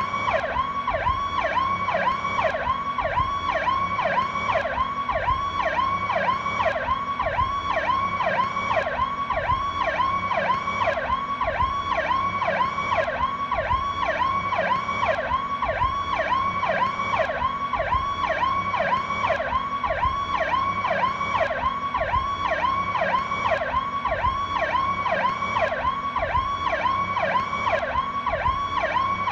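Federal Signal PowerCall electronic police siren sounding its standard tone: a rapid up-and-down pitch sweep repeating about twice a second, steady and unbroken.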